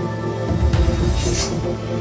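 Soundtrack music with sustained tones over a deep bass. There is a sharp hit under a second in and a rising swoosh just past the middle.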